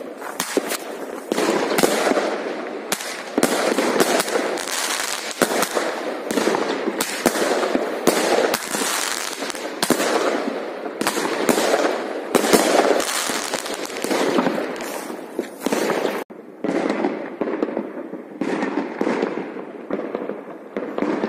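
Fireworks going off: many overlapping bangs and crackles in quick succession. About sixteen seconds in the sound suddenly drops, then the bangs go on fainter and sparser.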